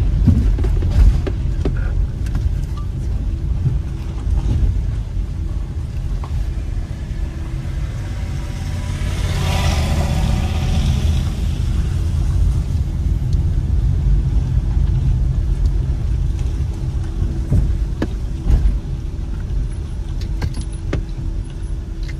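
Ford Bronco driving down a steep mountain road: a steady low engine and road rumble with a constant hum, small knocks and rattles here and there, and a hiss that swells and fades about halfway through.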